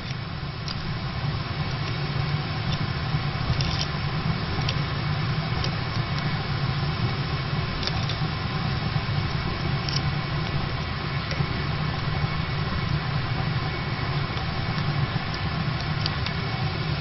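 Steady low hum, with scattered light clicks from the chain tool as a bicycle chain pin is pushed back in to rejoin the chain.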